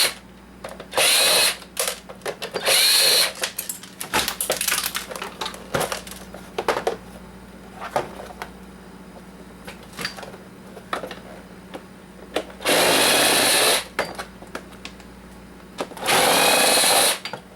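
Cordless drill-driver backing out screws from a coffee maker's plastic housing, run in short bursts of about half a second to a second, three in quick succession at the start and two more near the end. Light clicks and rattles of screws and plastic being handled between the bursts.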